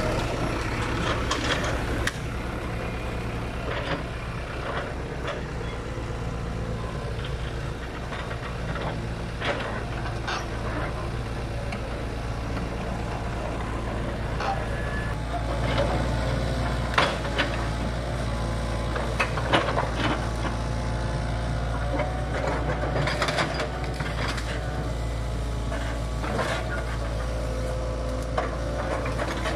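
Hitachi tracked excavator's diesel engine running steadily under work. Several sharp knocks and cracks sound out, most of them in the second half, as the bucket handles logs and brush.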